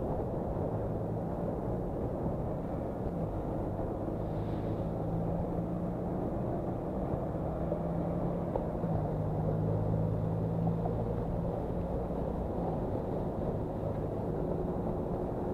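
Traffic heard from a moving bicycle: a steady low rumble, with a double-decker bus's engine drone swelling about halfway through as the bus runs alongside, then easing off.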